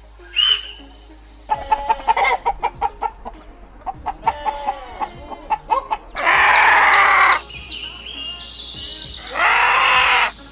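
Chickens clucking in quick short notes, then a rooster crowing twice, each crow lasting a little over a second. A single short call sounds just before the clucking.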